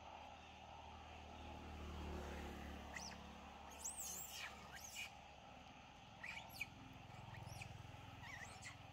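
Faint rumble of motor traffic passing on a nearby road, swelling about two seconds in and again near the end, with a handful of short, high chirping calls scattered through the middle.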